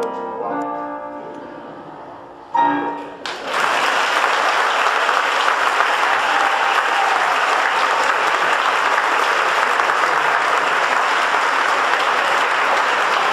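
The song's backing music ends: held notes fade away, and a short final chord comes about two and a half seconds in. Right after it, a theatre audience breaks into steady applause that lasts to the end.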